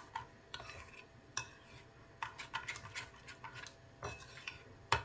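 A metal spoon stirring thick cornmeal paste in a glass bowl, with irregular clinks and scrapes of the spoon against the glass and soft wet mixing between them. A sharp clink comes about 1.5 seconds in, and several more near the end.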